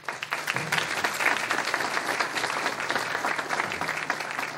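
Audience applauding: many hands clapping in a dense, even patter that starts suddenly and stops near the end.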